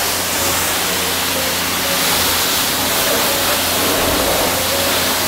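High-pressure washer spraying water in a steady hiss, with the washer's pump motor humming low underneath.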